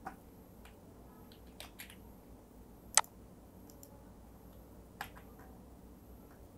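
Computer mouse clicking: a few sharp single clicks a second or two apart, the loudest about three seconds in, over a faint low hum.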